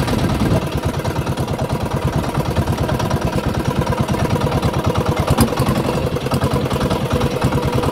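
Small outrigger boat's engine running steadily, a rapid even low pulsing.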